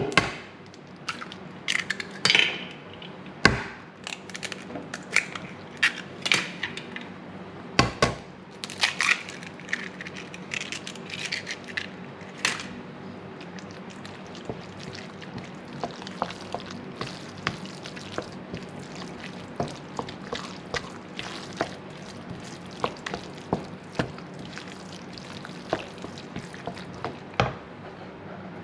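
Three eggs cracked one after another against a frying pan, sharp knocks about four seconds apart. A wooden spoon then stirs and scrapes through thick rice mixture in the pan with small repeated taps, over a low steady hum.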